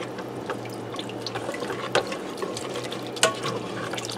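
A spoon stirring thick sour-cream sauce in a stainless pressure-cooker pot: wet stirring with scattered clicks of the spoon against the pot, two louder knocks about two and three seconds in. A low steady hum runs underneath.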